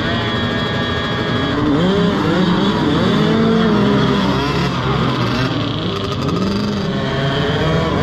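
A pack of 50cc peewee dirt bikes revving away from the start, many small engines overlapping as their pitch rises and falls with each rider's throttle.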